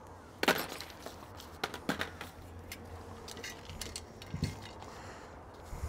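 Scattered light clicks and clinks of small metal carburetor parts and screws being handled during the teardown of a Rochester Quadrajet four-barrel carburetor, over a faint steady low hum.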